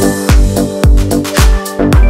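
Background music with a steady beat: a deep kick drum about twice a second under sustained notes.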